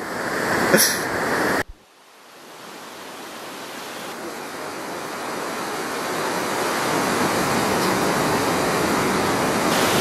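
Steady rush of a waterfall and whitewater rapids. It cuts off sharply near two seconds in, then fades back in and grows to a steady, even rush. Before the cut there are a couple of light knocks.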